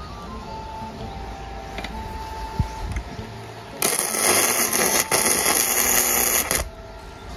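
An EENOUR MIG120L welder running gasless flux-core MIG on a steel bar. The arc strikes about four seconds in, crackles and sizzles steadily for nearly three seconds, then stops.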